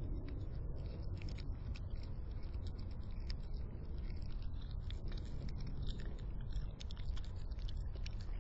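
Raccoon chewing chicken scraps: a steady run of small wet clicks and crunches, over a steady low background rumble.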